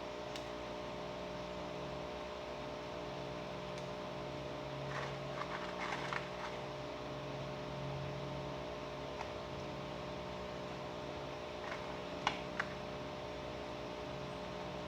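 Steady hum of an electric fan or similar small motor. There is light rustling and clicking about five to six seconds in, and two sharp clicks a little after twelve seconds.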